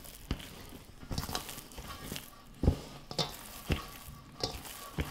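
Light, irregular taps and squishes of hands handling sticky panettone dough in its mould.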